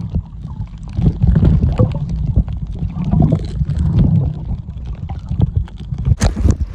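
Muffled underwater rumble and gurgling of seawater moving over a phone's microphone held below the surface. A short sharp burst comes near the end.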